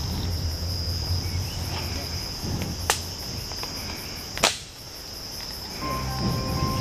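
Night insects, crickets, calling in a steady high chirr. Two sharp clicks come about 3 and 4.5 seconds in.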